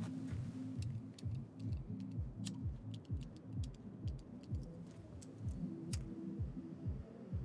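Background music: low sustained bass notes over a steady low beat, with light clicking ticks scattered through it.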